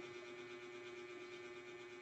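Faint steady electrical hum over quiet room tone, with no distinct sounds.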